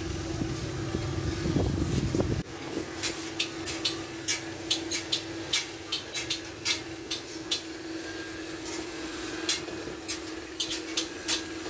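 Oxy-fuel cutting torch on a circle-cutting arm hissing steadily as it burns a round blank out of iron plate, with irregular sharp clicks and a steady hum underneath. A low rumble in the first two seconds cuts off suddenly.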